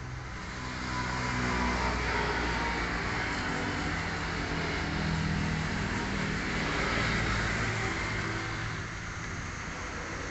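A motor vehicle's engine running nearby, growing louder about a second in and easing off again near the end.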